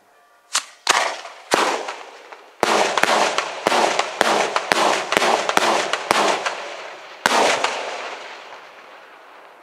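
Daytime fireworks salute: aerial shells bursting overhead with loud bangs, each with a rolling echo. Three spaced bangs come first, then a rapid run of about a dozen, roughly two a second. After the last bang, some seven seconds in, the echo fades away.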